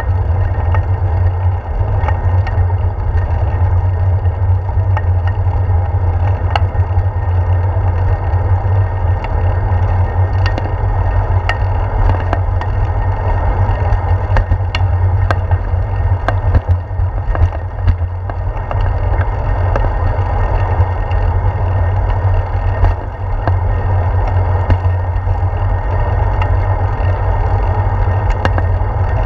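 Bicycle rolling over a concrete sidewalk, heard through a handlebar-mounted GoPro Hero 4: a steady low rumble of road vibration and wind, with scattered sharp clicks and knocks from bumps and sidewalk joints.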